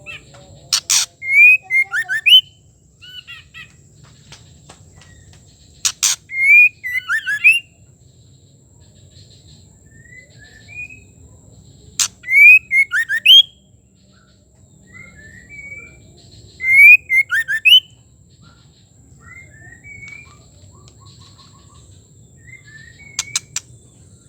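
Female white-rumped shama calling: four short phrases about five seconds apart, each a sharp click followed by a few quick whistled notes rising and falling, with a brief burst of clicks near the end.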